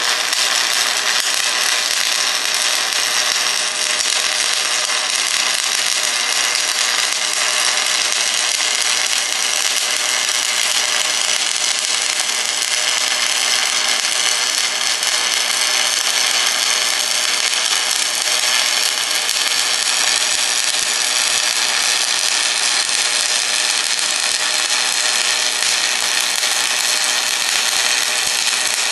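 Stick welding (shielded metal arc) arc sizzling steadily as a flux-coated electrode burns along a weld bead, a continuous high hiss with no breaks.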